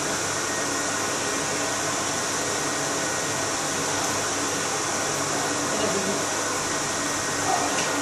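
Steady rushing air noise of an electric blower running at a constant level, with no change in pitch.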